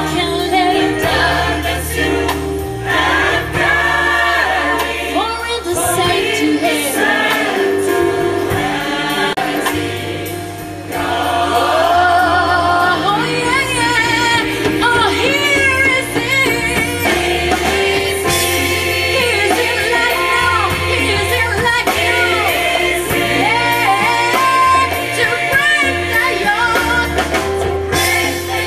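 Gospel choir singing in parts over a band, with an electric bass holding low notes beneath the voices.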